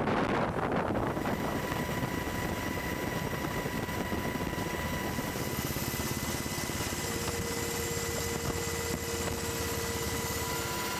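Steady helicopter engine and rotor drone heard from inside the cabin, a noisy rush with several steady whining tones over it. In the first second, wind buffeting the microphone fades out as the drone takes over.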